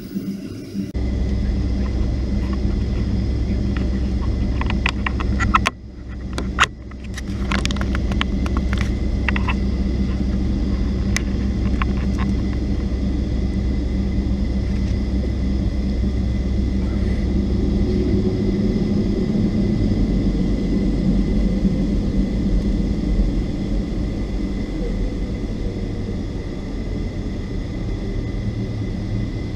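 Cabin noise inside a Boeing 757-200 on the ground: a steady low rumble from the idling Rolls-Royce RB211 engines, with a steady hum and a faint high whine. A cluster of clicks and knocks, with a brief drop in the sound, falls about six to twelve seconds in.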